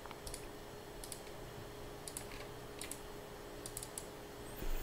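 Scattered, faint clicks of a computer mouse and keyboard, several in quick pairs like button presses, over a faint steady hum.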